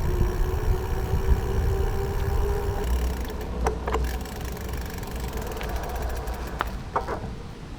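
Low wind rumble on the microphone and tyre noise from a bicycle being ridden. A steady hum fades out about three seconds in, and a few sharp clicks or knocks come in the second half.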